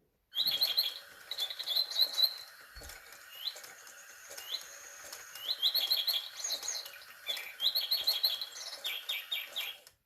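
Sound-activated toy bird playing recorded birdsong through its small speaker: quick repeated chirps and short rapid trills over a steady hiss. It starts suddenly and cuts off abruptly near the end.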